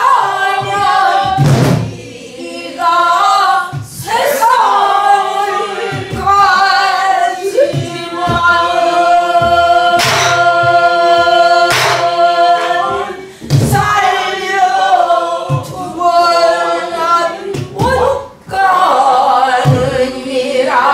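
A group of voices singing a slow Korean folk song together, holding long notes, with a few hard strokes on sori-buk barrel drums spaced several seconds apart, keeping the slow jinyangjo rhythm.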